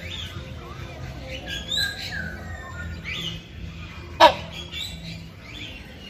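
Buceros hornbills calling: a run of short, gliding calls, then one loud, sharp call about four seconds in. It is a male's call to a female.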